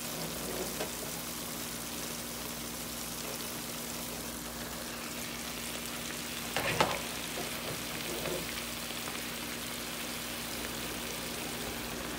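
A pot of grape tomatoes and feta sizzling steadily on the stove over a steady low hum, with one short clatter about seven seconds in.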